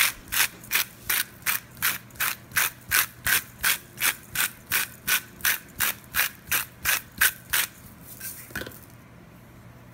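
Hand-twisted sea salt grinder grinding salt, in short grinding strokes about three a second, stopping about eight seconds in.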